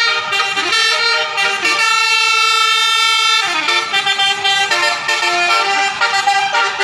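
Indonesian 'telolet' bus horn, a multi-note air horn, playing a tune. It runs a quick series of short notes, holds a long chord from about two seconds in to about three and a half, then goes back to short stepping notes.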